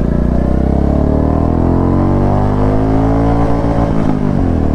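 Royal Enfield Classic 350's single-cylinder engine revved in neutral. Its pitch climbs over about two seconds, then drops back toward idle near the end.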